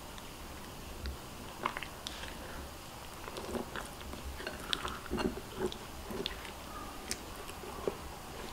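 Silicone spatula stirring thick flour-and-egg batter with sweetcorn kernels in a glass bowl: wet squelching with irregular small clicks, getting busier about halfway through.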